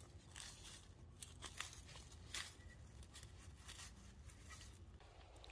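A hand tool digging into forest soil and dry leaf litter around a small plant. It makes a run of irregular, faint scrapes and crunches that stop about five seconds in.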